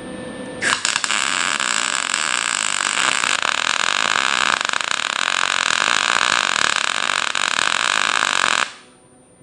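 MIG welder running a continuous weld bead on steel: a steady sizzling arc that starts about a second in and cuts off sharply near the end.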